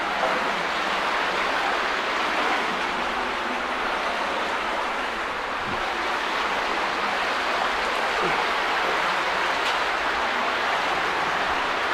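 Underground cave stream running steadily, an even hiss of flowing water.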